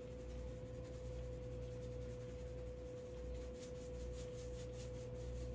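Accent seasoning shaken from its shaker onto meatballs: a faint, rapid, dry ticking and hissing of granules that grows denser in the second half, over a steady hum.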